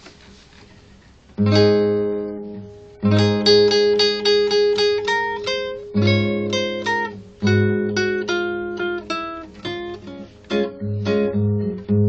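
Nylon-string classical guitar played fingerstyle, a melody of plucked notes over bass notes. After a quiet start it opens with a ringing chord about a second and a half in.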